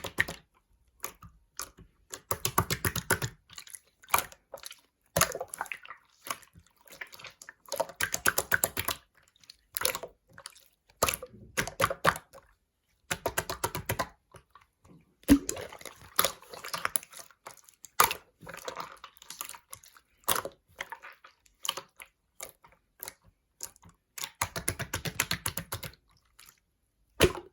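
Clear slime being squeezed and pressed by hand, giving irregular bursts of rapid wet clicks and crackles, some over a second long, with short pauses between.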